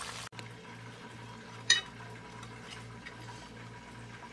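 Oil frying cuts off abruptly at the very start. Then a faint steady hum, with one sharp ringing clink of a dish a little under two seconds in.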